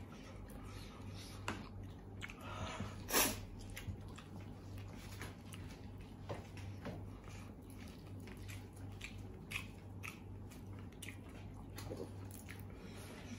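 A man chewing fried chicken and noodles, with scattered small crunches and mouth clicks and one louder click about three seconds in, over a steady low hum.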